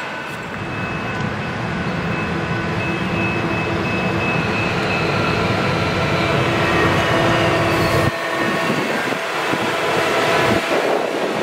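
Self-propelled rail maintenance-of-way machine running along the track, its diesel engine and a steady high whine growing louder as it approaches and passes close by.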